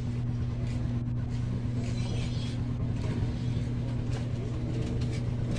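A steady low hum over background noise, even throughout, with faint scattered light clicks.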